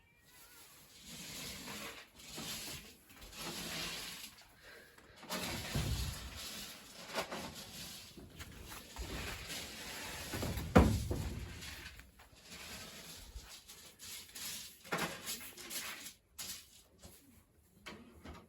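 Soft rustling noise in repeated swells with short gaps, with a few low bumps, the loudest about eleven seconds in.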